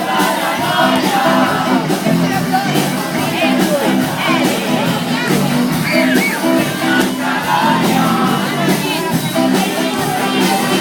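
Loud music with a steady beat, with voices over it.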